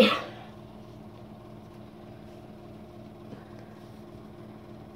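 Steady low machine hum holding a few fixed tones, with a short loud sound right at the start that fades within half a second.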